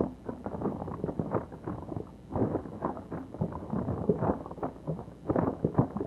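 Rapid, irregular knocking and clattering, muffled and dull, several hits a second, with no clear rhythm.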